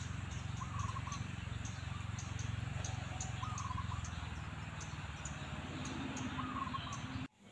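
Outdoor background noise: a steady low rumble with a few faint, short wavering calls about every two and a half seconds and light ticking high above. It cuts off suddenly near the end.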